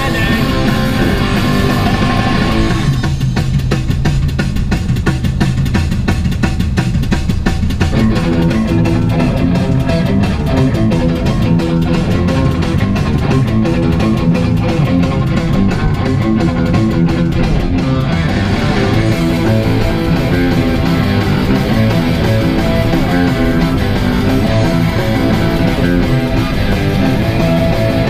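Rock music playing: an instrumental stretch of a song led by guitar, without singing.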